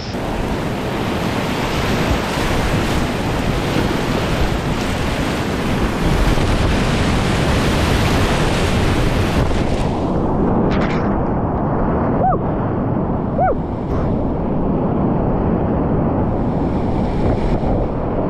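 Roar of whitewater rapids and water splashing over the kayak and the action camera, with water and wind buffeting the microphone. The sound turns duller about ten seconds in as spray washes over the camera.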